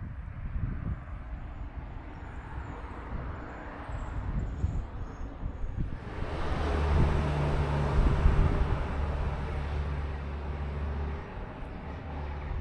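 An engine passing close by: a low hum and noise that swell about six seconds in and ease off near the end, over low outdoor rumble.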